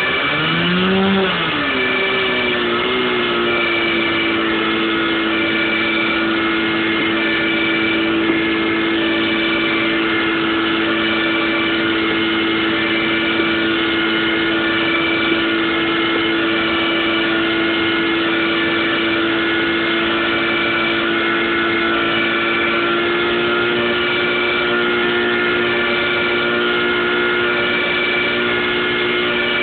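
Motor fire pump's engine revving up about a second in, then running steady at high speed as it pressurises the hose lines. A faint high tone pulses on and off about every second and a half over it.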